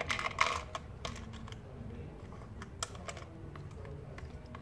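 Light plastic clicks and clatter of hands handling a toy vending machine and pulling a small plastic toy item out of its dispensing slot: a quick flurry of clicks in the first second, then scattered single clicks.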